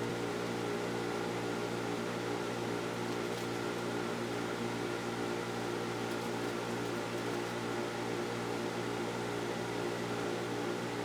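A steady mechanical hum, like a fan or motor running, with a constant low drone over an even hiss.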